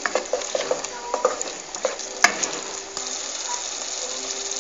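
Wooden spoon stirring and scraping a thick tomato-paste sauce in a metal pot, with short knocks against the pot and one sharper click a little after two seconds, over a steady sizzle. The knocks stop near the end, leaving the sauce sizzling.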